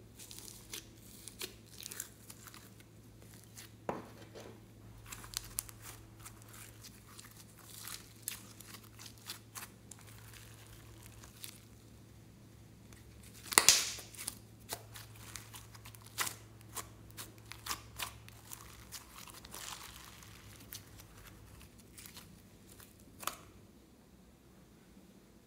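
Sticky orange slime with small beads being peeled from its dish and stretched by hand, giving irregular wet crackles and clicks, with one much louder crackle about halfway through.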